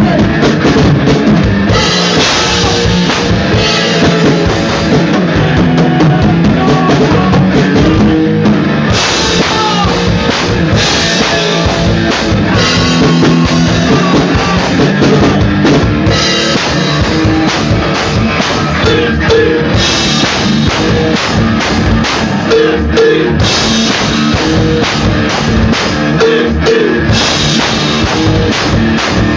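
A live rock band plays loudly on electric guitar and a PDP drum kit, with a steady, driving beat.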